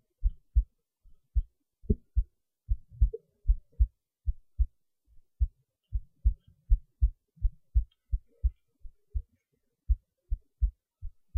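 Heartbeat recorded close up: a steady run of short, low thumps, mostly in close pairs (lub-dub).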